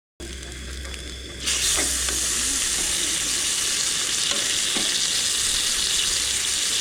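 Steak sizzling as it fries in a hot oiled pan, a steady hiss that starts suddenly and grows louder about a second and a half in.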